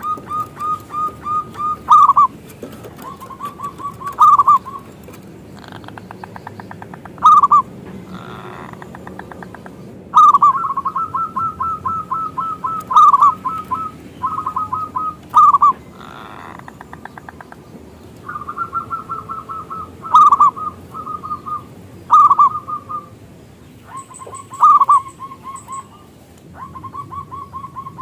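Zebra dove cooing: phrases of quick, rapidly repeated short notes at a steady pitch, broken every few seconds by a louder single coo, with short pauses between phrases.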